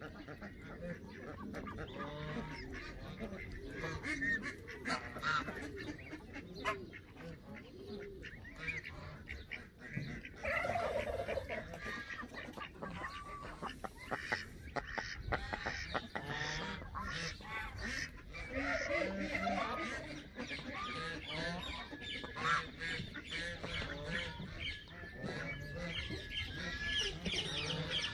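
A mixed flock of geese and ducks calling, Canada geese among them: honks and quacks overlap all the way through, with many short clicks mixed in.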